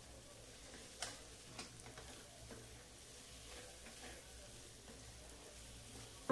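Faint sizzling of stuffed brinjals frying in masala in a kadhai, as a spatula stirs them. The spatula scrapes and clicks against the pan a few times, the loudest about a second in.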